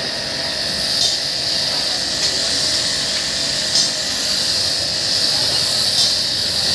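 Pressure washer spraying a high-pressure jet of water onto a car's AC condenser: a steady, even hiss with a faint steady hum beneath it.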